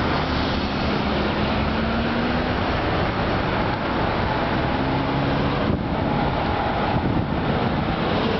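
Road traffic: a steady wash of car engine and tyre noise, with an engine note rising slowly as a vehicle accelerates in the first couple of seconds.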